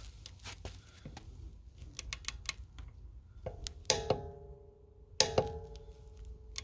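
Metal tools and parts being handled: light clicks and knocks, then two sharp metallic clanks about a second and a half apart, each ringing on with a steady tone.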